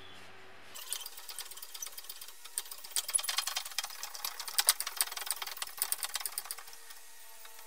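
Shop press driving a steel bearing race into a BMW E30 differential casing, with a dense run of small irregular metallic clicks and creaks starting about a second in and dying away near the end.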